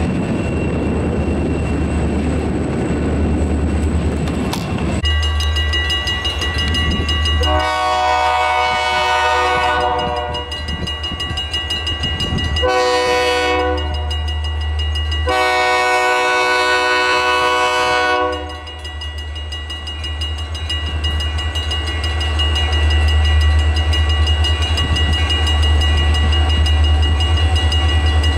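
Freight train's diesel locomotives passing, the air horn sounding a long blast, a short one and another long one over a steady low rumble.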